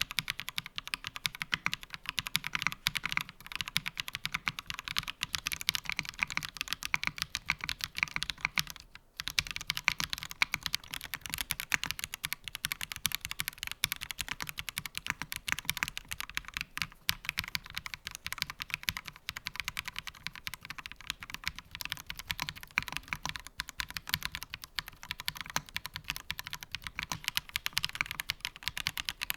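Fast, continuous typing on an Angry Miao Compact Touch mechanical keyboard with its internal foam removed and its stock keycaps: a dense stream of key clacks, with a brief break about nine seconds in.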